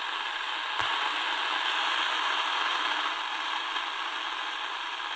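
Steady hiss and static from the Tecsun DR-920C's small speaker as it is tuned across the shortwave bands with no station coming through, with one click a little under a second in.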